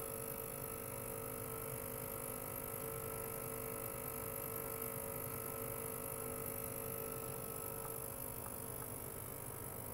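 Ultrasonic cleaner running with a glass jar of stainless parts in its bath: a steady hum made of several held tones over a high hiss. The strongest tone fades out about eight seconds in.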